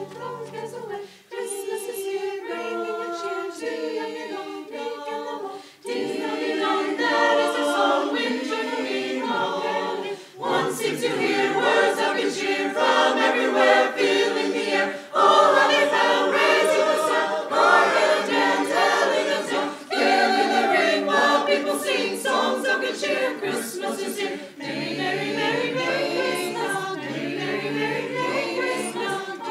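Mixed choir of women and men singing unaccompanied, in long held phrases with brief breaks between them.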